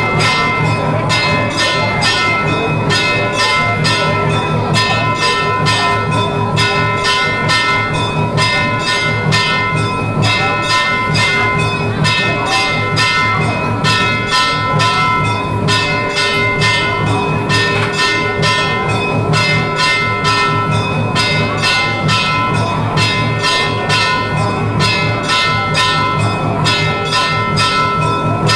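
Hindu temple bells rung continuously in a fast, even rhythm of several strokes a second, their ringing tones sustained underneath.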